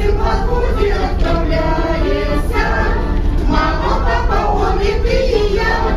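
A group of amateur singers singing a Russian song together, the melody carried by several voices over a steady low accompaniment.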